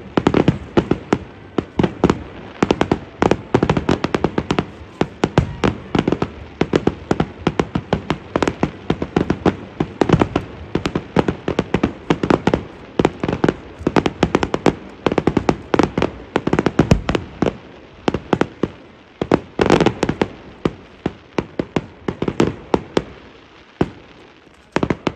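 Fireworks display: a rapid, dense barrage of sharp bangs and cracks from aerial shells, many a second, thinning out near the end.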